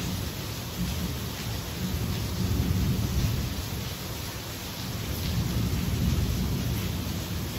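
Steady hiss of heavy rain, with a low rumble that swells and fades every second or two.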